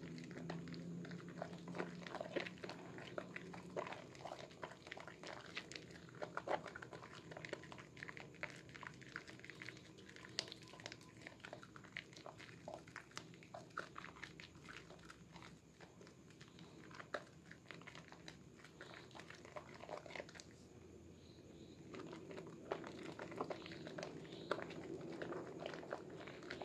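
A red bar of soap being lathered between wet hands: wet squelching and crackling of thick foam, with many small pops and clicks that thin out for a few seconds past the middle.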